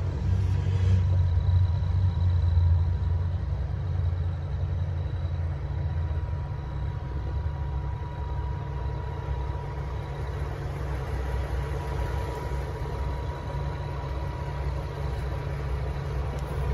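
DAF XF460 tractor unit's PACCAR MX-13 six-cylinder diesel idling steadily, a low rumble heard from inside the cab that is a little louder in the first few seconds. A faint steady high tone runs over it.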